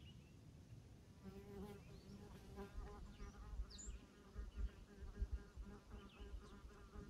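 A flying insect buzzing close by, a steady hum that starts about a second in and wavers as it moves. Short bird chirps sound above it, with a few low rumbles.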